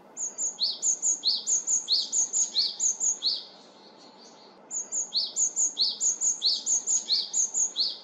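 Great tit singing its repeated two-note 'tsubi-tsubi' song: a high note dropping to a lower one, repeated several times over in two phrases with a short pause about halfway through.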